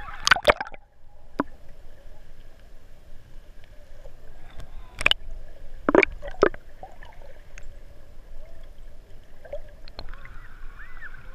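Seawater sloshing and splashing against a camera held at the surface, with a few sharp splashes and bubbly gurgling as waves wash over it and it dips under.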